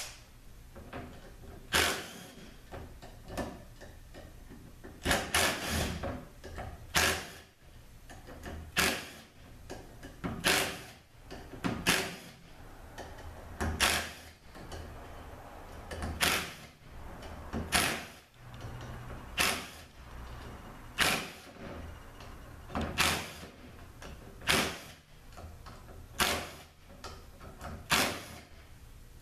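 Bolts being taken out of a 42RLE transmission valve body one after another: a short, sharp sound about every one and a half to two seconds.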